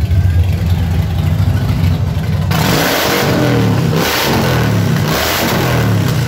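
An engine idling steadily, then about two and a half seconds in a Harley-Davidson motorcycle's V-twin is revved hard in about three blips, each rising and falling in pitch.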